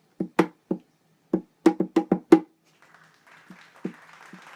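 A quick, uneven run of sharp wooden knocks, like wood-block hits, with a flurry of five close together about two seconds in. After that a few softer knocks sound, and faint applause starts to build near the end.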